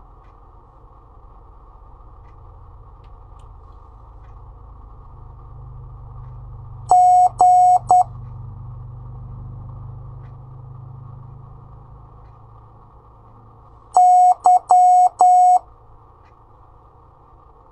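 Morse code practice tone sending two letters slowly, several seconds apart: 'G' (dah-dah-dit) about 7 s in, then 'Y' (dah-dit-dah-dah) about 14 s in. The tone is a steady electronic beep at one pitch, with faint hiss and hum between the letters.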